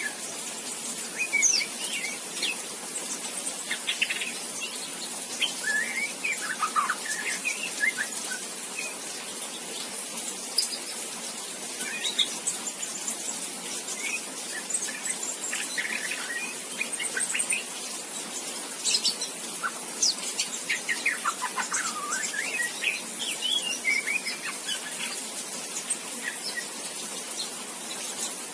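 Juvenile white-rumped shama, about two and a half months old, practising its first song: scattered short chirps and brief rising and falling whistles in irregular bouts, the unformed twittering subsong ('ngriwik') of a young bird learning to sing. A steady hiss underlies it.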